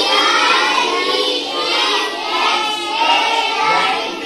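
A class of young children chanting aloud in unison, many voices together at once.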